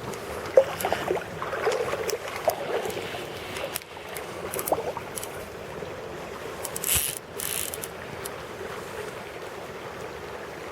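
River water running steadily, with scattered short knocks and clicks and a brief louder rush about seven seconds in.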